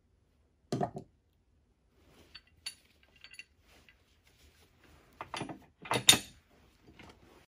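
Metal clinks and knocks of a winch hook being handled and clipped onto a Badlands Apex 12000 winch: a couple of knocks about a second in, light ticks after, and the loudest cluster of clanks near the end.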